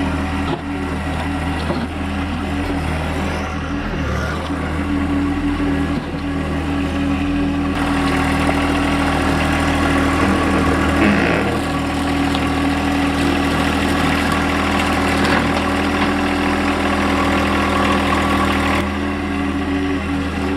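Wood-Mizer LX55 sawmill's engine running steadily. About eight seconds in it grows louder and noisier, and it settles back down near the end.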